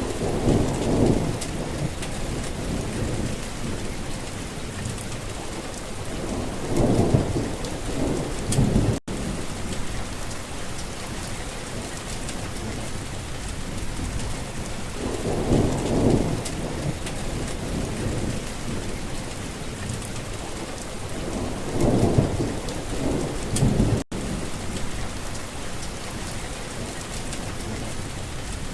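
Steady rain with rolling thunder that rumbles four times, each rumble lasting a second or two. The sound cuts out for an instant twice.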